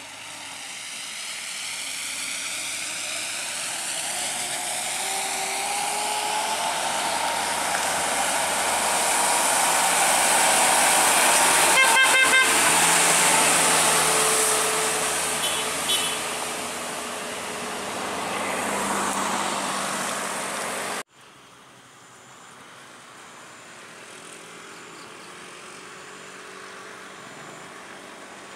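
Isuzu light truck's diesel engine growing louder as the truck approaches and passes, its note rising and then falling, with a quick run of horn toots about twelve seconds in and another short toot a few seconds later. The truck sound cuts off suddenly about 21 seconds in, leaving a much quieter outdoor background.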